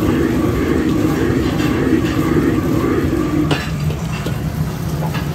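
Restaurant wok-range gas burner's flame rushing steadily under a steel wok, with clinks of wok and ladle. The rush eases after a sharp clink about three and a half seconds in.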